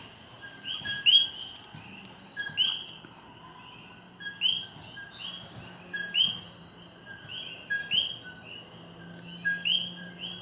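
Coquí frogs calling in chorus, each call a short lower note followed by a higher, rising note, 'co-quí', repeated about once a second from more than one frog, over a steady high-pitched hum.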